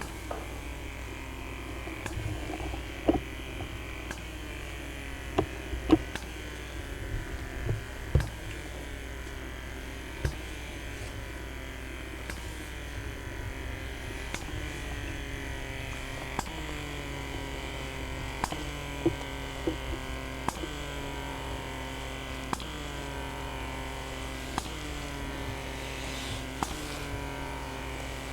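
A small electric motor buzzing steadily, its pitch sagging and recovering about every two seconds in the second half, with a few sharp clicks in the first ten seconds.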